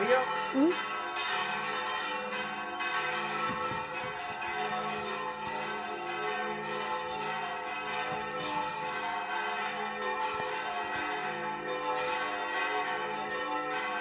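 Cathedral church bells ringing continuously from the bell tower, several bell tones sounding together and sustained. Two short upward-sliding sounds are heard within the first second.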